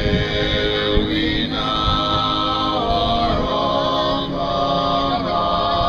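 Small group of women's voices singing a cappella in harmony, holding chords and moving from note to note together.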